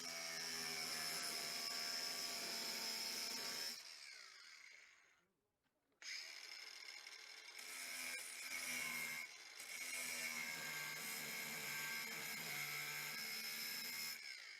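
Battery-powered cutting tool running with a steady high whine as it trims the top piece off a rusty sheet-steel car body panel. It cuts for about four seconds, stops, then starts again about six seconds in and runs steadily until near the end.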